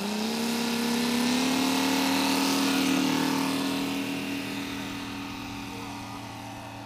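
O.S. FR7-420 seven-cylinder four-stroke radial model aero engine opening up for the takeoff roll. Its pitch rises over the first second or so, then holds steady and fades as the plane runs away down the runway.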